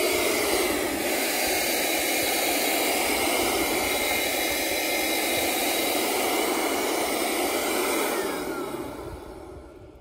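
Ryobi P755 18-volt cordless workshop blower running steadily on its high speed, a loud airy rush with a faint fan whine, blowing leaves across grass. About eight seconds in it is switched off and winds down, its whine falling in pitch as the sound fades.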